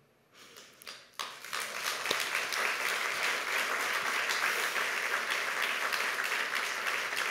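Audience applauding: a few scattered claps, then full applause from many hands about a second in.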